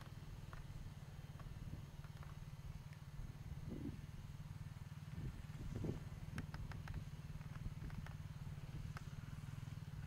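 Suzuki dual-sport motorcycle engine running steadily at low revs as the bike is ridden slowly over rocky grass: a faint, even low rumble, with a few light clicks over it.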